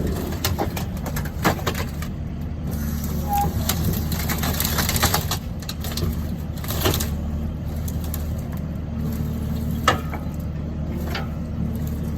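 Engine of a piece of road-building equipment running steadily with a low even drone, with scattered knocks and crunching sounds over it.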